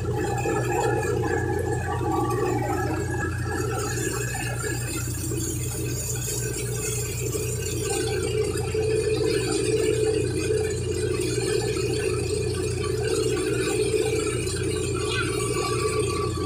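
Tractor-driven threshing machine running steadily while millet stalks are fed in: a continuous, even drone of the tractor engine and the spinning thresher drum.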